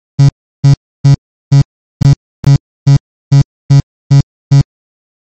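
A short hand-drawn waveform, a drawn attempt at a vowel sound, played back eleven times in a row, about twice a second. Each play is a brief, buzzy, low-pitched synthetic tone.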